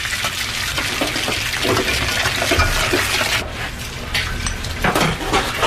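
Eggs frying in hot oil in a pan: a steady, crackling sizzle.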